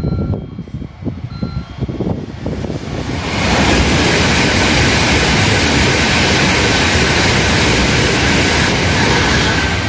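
N700-series Shinkansen running through a station at speed. A low, uneven rumble comes first; about three seconds in, a loud, steady rushing noise sets in as the train passes, holds for about six seconds, and eases off near the end.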